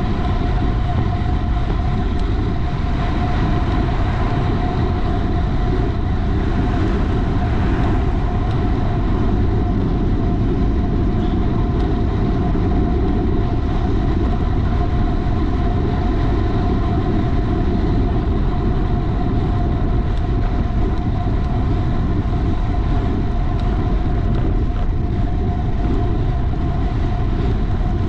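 Racing bicycle ridden at speed: steady wind rush on the microphone with road noise, and a thin steady whine running underneath without a break.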